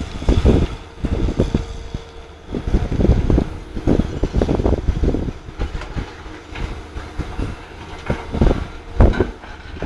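CAT 320C hydraulic excavator working under load, its diesel engine labouring with irregular clanks and thuds as it digs a bucket of clay and swings it over. Heavy thuds near the start as the bucket bites into the pile, and again near the end as the load is dropped into the steel bed of a dump truck.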